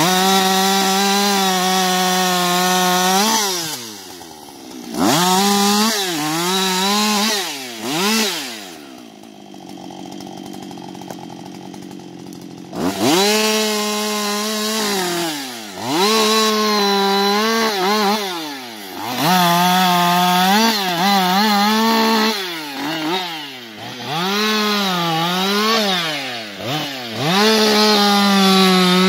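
Husqvarna 560XP II single-cylinder two-stroke chainsaw running at full throttle, sawing wood. The revs drop and pick up again many times as the throttle is let off and squeezed. About a third of the way in it falls to a quieter idle for roughly four seconds before revving up again.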